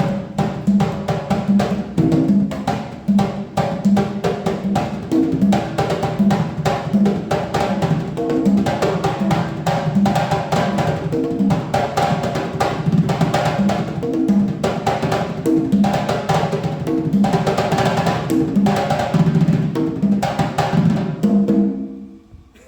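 Fast improvised drumming with many rapid strokes over repeating pitched low notes, stopping near the end.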